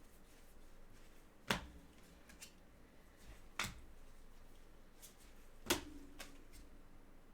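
Trading cards being handled on a table: three sharp taps or snaps about two seconds apart, with a few fainter clicks between them.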